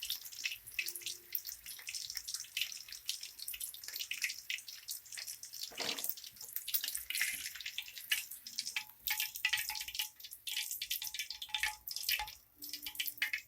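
Chicken kabab pieces deep-frying in hot oil: a steady sizzle with dense, irregular crackling pops.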